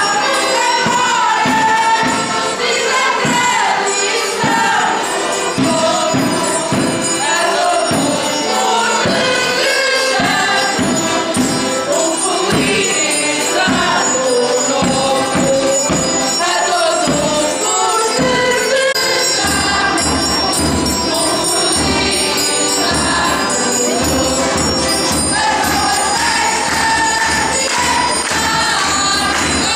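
A folk group singing a Christmas song together, several voices over a regular hand-percussion beat of about two strokes a second. About two-thirds of the way through the beat drops away and a steady low hum comes in under the singing.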